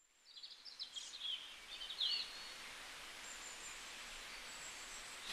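Outdoor morning ambience fading in from silence: a steady hiss with a few short, high bird chirps in the first two seconds and faint thin whistled calls later on.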